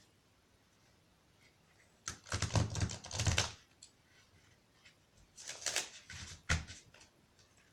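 Playing cards being shuffled: two bursts of rapid fluttering clicks, the second one shorter.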